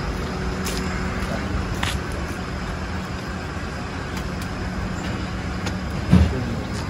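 Steady low outdoor rumble of road traffic with a held hum and a few faint footstep clicks. A short thump about six seconds in, the loudest sound, comes as a man goes in through the entrance door.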